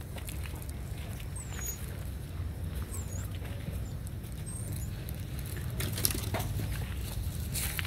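Light scuffing steps on a dirt yard, with a few short, faint high chirps in the first half, over a low steady rumble.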